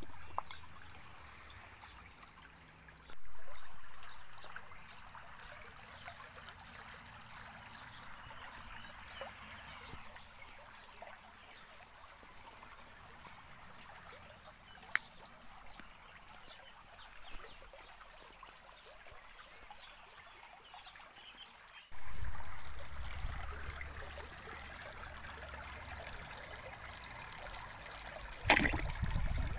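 Shallow stream water trickling over stones, with small splashes and ripples as the eels feed at the surface. Gusts of wind buffet the phone's microphone about three seconds in and again past twenty seconds, and there is a brief loud knock near the end.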